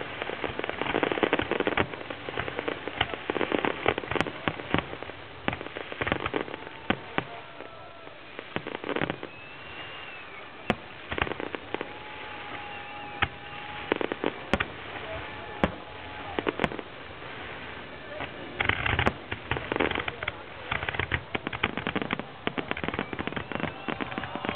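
Aerial fireworks display: a dense run of shell bursts and crackling, heaviest in the first few seconds and again in the last few, with a lighter spell of scattered bangs in the middle.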